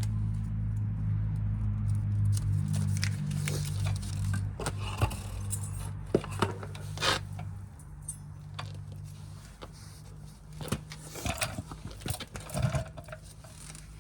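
Light metal clinks and clicks as thin steel brake pad abutment clips are handled and pressed into a caliper bracket. Under them runs a steady low hum that gets quieter about halfway through.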